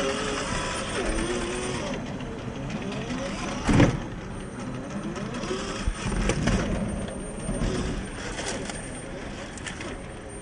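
Axial SCX10 III rock crawler's 45T 540 brushed motor and geared drivetrain whining, the pitch wavering up and down with the throttle. A loud knock comes a little under four seconds in, and a few lighter clicks follow later.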